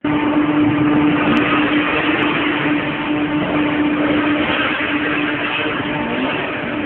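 BMW car drifting, its engine held at steady revs while the tyres slide and scrub on the concrete floor.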